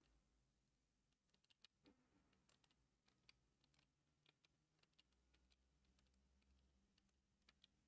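Near silence: faint room tone with a dozen or so very faint, short clicks at uneven intervals.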